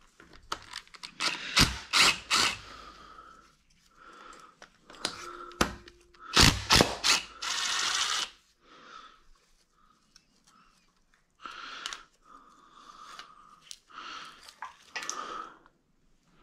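Hand work on a car engine during disassembly: a run of sharp clicks and snaps with rustling between them, loudest about two seconds in and again about six to seven seconds in, with a short rasp near eight seconds.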